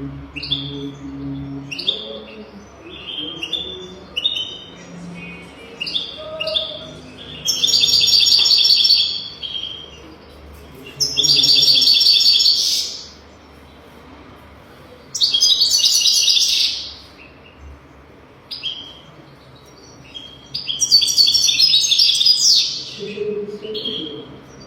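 European goldfinch singing: short high chirps broken by four long, rapid twittering song phrases of about two seconds each.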